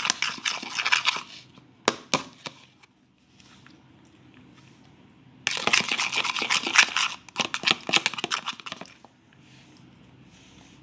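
A fork stirring thickening slime in a bowl: sticky, crackling squelches and small clicks, in a short bout at the start and a longer one in the middle of the clip. The slime has stiffened with added baking soda and activator and is hard to mix.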